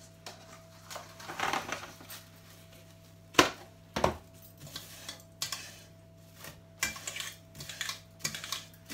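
Cling film pulled off its roll, torn, and crinkled and pressed over a stainless steel mixing bowl: a rushing pull about a second and a half in, two sharp clicks a little after three and four seconds in, then a run of short crackles and clicks. A faint steady hum runs underneath.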